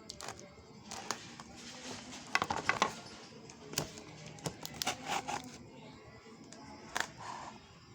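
Parcel packaging being handled: irregular clicks, taps and short crinkles of plastic wrapping, busiest in two clusters a few seconds apart.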